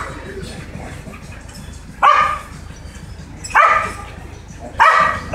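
A pack of mixed-breed stray dogs, one barking three times, about a second and a half apart.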